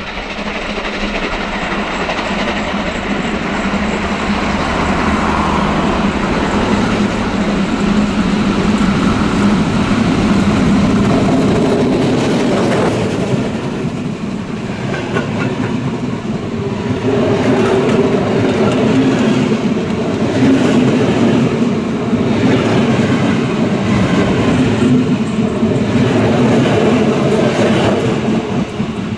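Steam-hauled passenger train approaching and passing close by: the steam locomotive goes past first, then the coaches roll by with a regular clickety-clack of wheels over the rails.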